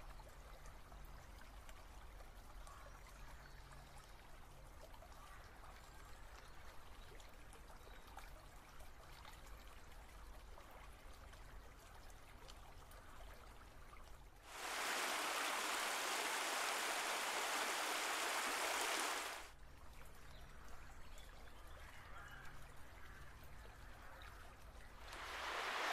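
Trout stream water flowing, a faint steady wash. About halfway through, much louder rushing water comes in abruptly for about five seconds and cuts off just as suddenly, and it rises again near the end.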